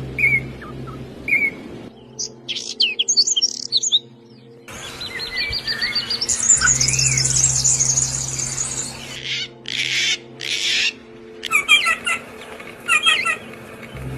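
Small songbirds chirping and trilling in a run of short recordings that cut abruptly from one to the next. A steady low hum lies underneath for much of it.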